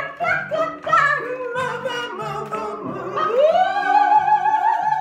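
Song played back with a singing voice over a steady bass line; about three seconds in, the voice slides up into one long note with a wide vibrato, held to the end.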